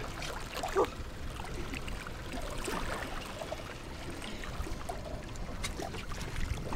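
Water sloshing and splashing against a boat's hull around a hooked bull shark at the surface, over a low steady rumble. A brief louder knock about a second in.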